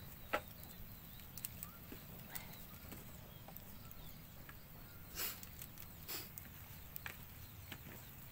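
Light scattered knocks and clicks with a brief rustle, from hands handling raw chicken pieces and a small seasoning sachet on a banana leaf laid on wooden boards, over a low steady background rumble. A sharp click comes just after the start, and the rustle about five seconds in.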